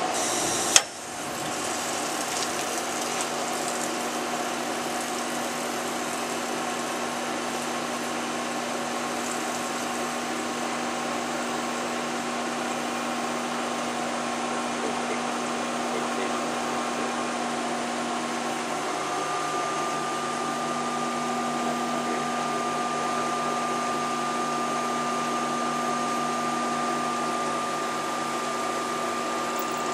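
CNC turning-milling center running steadily, a mix of machine noise and several steady tones. A brief loud burst comes about a second in, and a higher steady whine joins about two-thirds of the way through.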